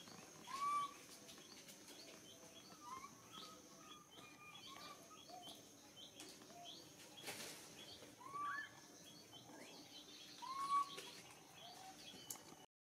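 Faint animal calls: a steady run of small high chirps, with a few louder short rising squeaks, one about a second in and two near the end.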